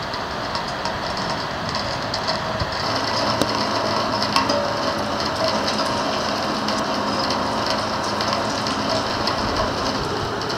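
Heavy rain from a thunderstorm downpour: a steady hiss with many sharp drop ticks on a nearby surface, growing a little denser after about two seconds.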